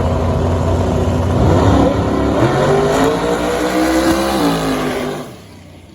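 A drag race car's engine at full throttle making a pass. The engine note climbs steadily, falls back briefly and then the sound drops off sharply near the end.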